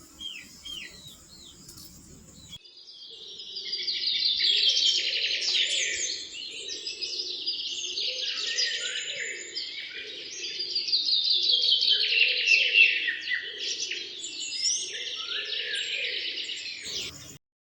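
Birds chirping. A few short chirps over a low hum at first, then from about two and a half seconds in a busy chorus of rapid, repeated trills that stops abruptly near the end.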